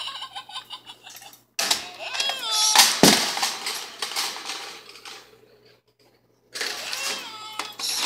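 Green-cheeked conure calling and chattering in rapid gliding, up-and-down squawks, in two bursts with a short pause between them; a sharp knock sounds about three seconds in.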